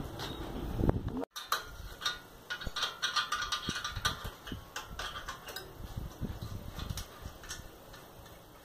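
Irregular metallic clicks and clinks of a wrench working the exhaust mounting bolts of a Sundown MAX 125 motorcycle as they are loosened, busiest in the middle and thinning toward the end.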